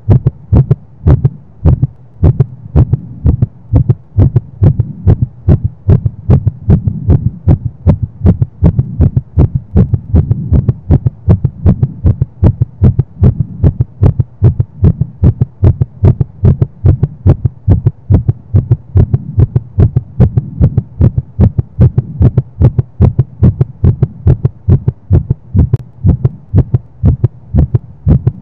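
A young woman's heartbeat, pounding fast and steady with her heart rate raised by sex, over a low steady hum.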